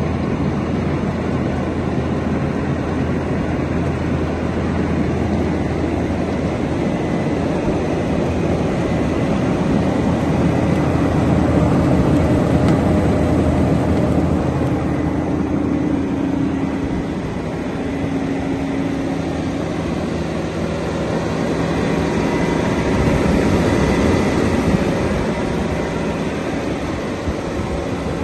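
Diesel engine of a Caterpillar PM-102K cold planer running steadily, a continuous mechanical drone.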